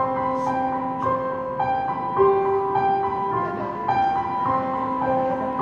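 Keyboard accompaniment starting abruptly and playing a slow introduction of held chords, the notes shifting every half second to a second.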